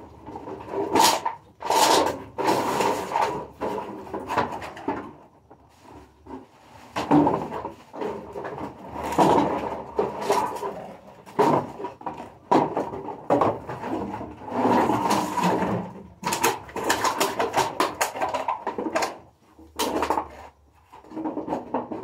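A large woven plastic sack being handled and pressed down: irregular crinkling and rustling of the plastic with short knocks, with a quieter lull a few seconds in and another near the end.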